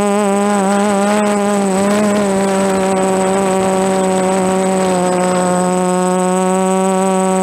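DJI F330 quadcopter's brushless motors and propellers droning in flight, the pitch wavering with throttle corrections for the first two seconds and then holding steady. A thin, steady high whistle runs alongside.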